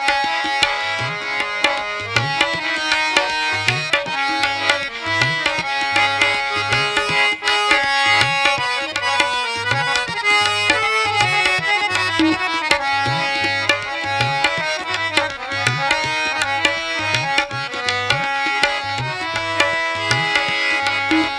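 Instrumental interlude of a live Bhojpuri song: a steady hand-drum rhythm whose low strokes bend upward in pitch, under a sustained melody with no singing.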